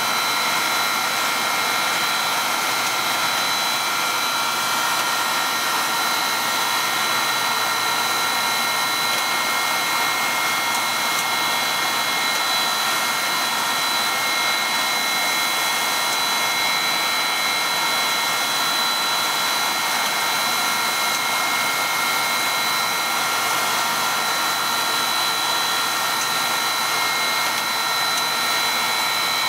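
A two-stage plastic recycling machine running steadily: an even mechanical whir with several constant high-pitched whining tones over it.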